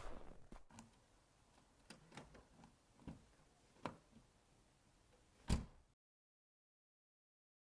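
A few faint, scattered clicks and knocks, then one louder thump about five and a half seconds in, after which the sound cuts to dead silence.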